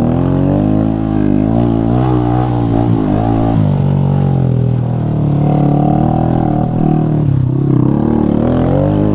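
A 125cc single-cylinder four-stroke minibike engine being ridden, its revs rising and falling again and again with the throttle, with a drop around the middle and another dip near the end.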